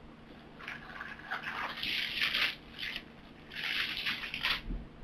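Crinkly rustling in two bouts, the first about two seconds long and the second about a second long.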